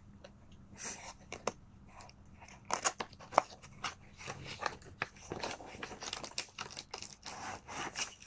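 Cardboard box being pulled open by hand: scattered tearing, scraping and crinkling of cardboard and plastic packaging, with a few sharper snaps about three seconds in.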